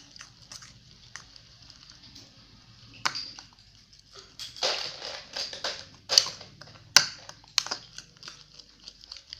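Sticky glue slime, with soap just worked in, being stirred and mixed: irregular wet squelches and sharp popping clicks, sparse at first and coming thick and loud from about three seconds in.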